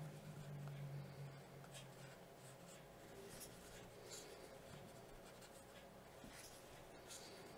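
Faint scratching and rustling of a crochet hook drawing yarn through stitches, in a few brief, irregular strokes.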